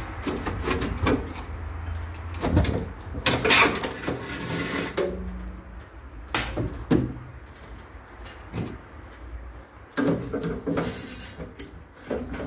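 Metal parts and tools knocking, clattering and scraping inside an opened Viessmann Vitodens 100 gas combi boiler as it is taken apart, with a longer scrape about three to five seconds in.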